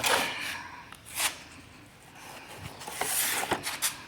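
Cardboard model-kit boxes being handled: a few bursts of rustling and scraping as boxes are set down and a new one is picked up, the longest about three seconds in.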